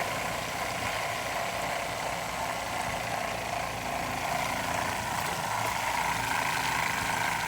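Battery-powered soft wash pump running steadily, drawing water from the tank through newly plumbed lines.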